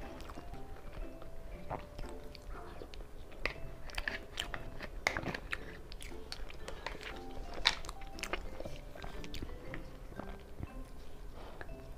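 Close-miked eating of molten chocolate lava cake: wet mouth and chewing sounds with sharp clicks of a metal spoon against the foil tray, over light background music.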